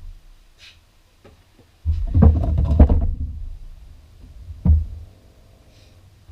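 Metal knocks and clunks from working on a car driveshaft's universal joint: a dense cluster of heavy knocks about two seconds in lasting about a second, then a single sharp knock near five seconds. Two brief, faint hisses come between them.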